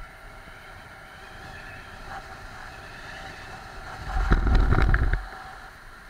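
Wind and road noise on a handlebar-mounted action camera while a road bike rolls along, steady hiss throughout. About four seconds in, a loud low rumble lasts a little over a second.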